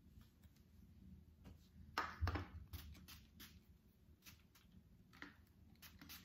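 Two quick hissing spritzes from a small hand-held spray bottle about two seconds in, with faint clicks and taps of handling around them.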